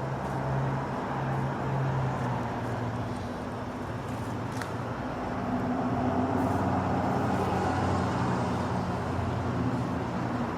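A vehicle engine running steadily with a low hum whose pitch shifts slightly a few times, over a steady rushing background noise.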